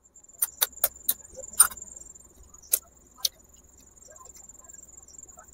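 An egg tapped against the rim of a small terracotta bowl and its shell pulled apart: about seven sharp, light clicks over the first three and a half seconds, with a steady high-pitched trill underneath.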